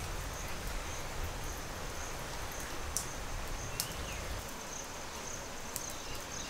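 Quiet outdoor ambience: an insect chirping faintly in a steady high pulse over a low rumble that eases off about four and a half seconds in, with a few faint clicks.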